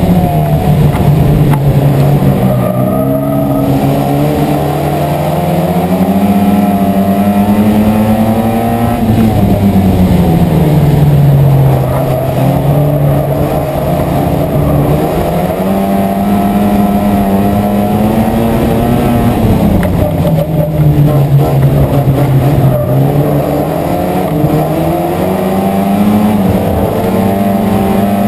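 Euro Rod race car's engine running hard under race load. Its note climbs steadily as the car accelerates and drops sharply as it lifts off, several times over, like laps of a short oval.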